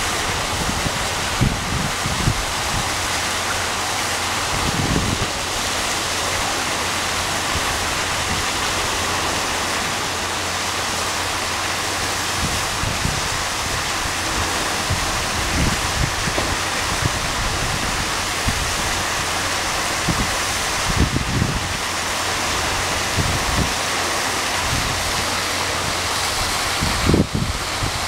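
Steady rush of an artificial waterfall pouring into a pool, with occasional short low rumbles.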